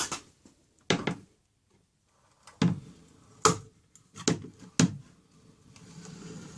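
A series of six sharp clacks and knocks of hard objects being handled, irregularly spaced over about five seconds, followed near the end by a fainter steady low hum.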